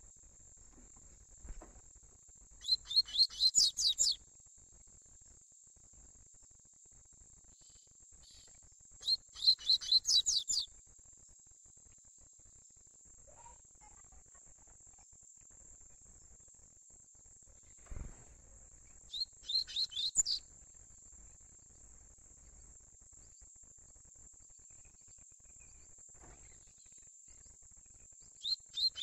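Juvenile double-collared seedeater (coleiro) singing its 'tui tui' song in short phrases of quick, high repeated notes. Three phrases come several seconds apart, and a fourth starts at the very end.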